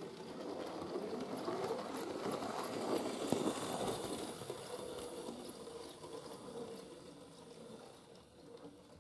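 OO-gauge model steam tank locomotive running on its track: the motor's whirr and the wheels' rumble and clicks grow louder as it passes close by, loudest about three to four seconds in, then fade as it runs away.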